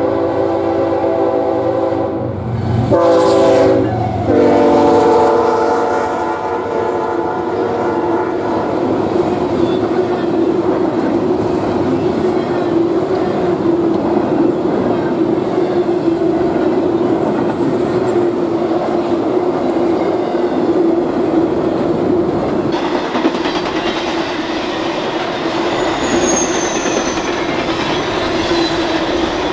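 BNSF double-stack intermodal freight train passing at speed. The lead locomotives' air horn sounds for about the first eight seconds and drops in pitch as the locomotives go by, about three seconds in. The rest is the steady rush and rumble of the container cars and their wheels on the rails.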